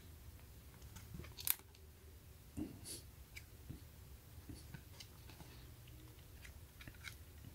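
Faint, scattered clicks and soft crackles of thick cardboard board-book pages being turned and handled, the loudest click about one and a half seconds in.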